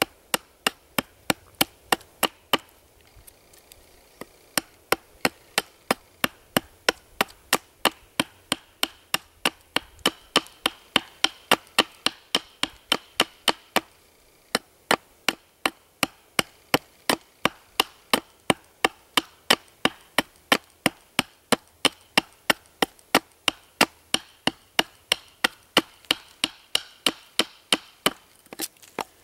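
Large knife chopping into a peeled fir stick braced on a stump: a steady run of sharp chops, about three a second, with short pauses about three seconds in and near the middle, as the end of the stick is hewn down to a taper.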